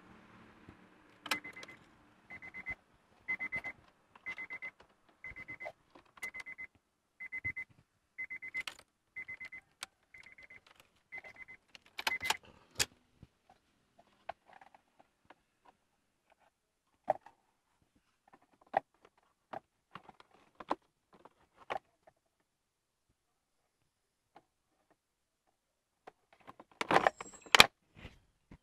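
Honda City's key-in-ignition warning chime beeping about once a second, with small clicks of wiring being handled. The chime stops about twelve seconds in as the key is pulled out with a jangle of keys. Scattered plastic clicks follow, then a few loud knocks near the end as the lower dash trim panel is pressed back into place.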